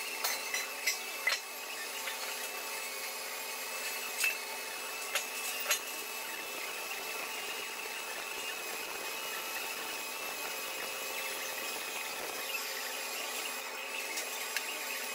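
Pulsed MIG welding arc on 3-inch schedule 40 steel pipe from a Fronius welder: a steady buzzing hiss with a few sharp crackles of spatter. The arc stops near the end.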